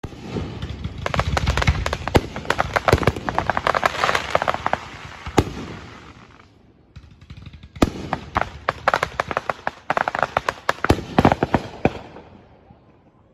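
Aerial fireworks bursting overhead in two volleys of rapid crackling with sharp bangs. The first run of crackles ends in a loud pop about five seconds in. After a short lull, a bang about eight seconds in sets off a second long run of crackles that dies away near the end.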